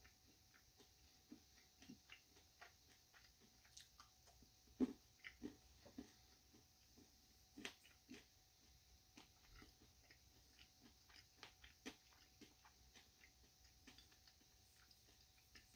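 Faint chewing of a bite of dark milk chocolate bar with peppermint candy and cookie crunch pieces: scattered soft crunches and mouth clicks, the loudest about five seconds in.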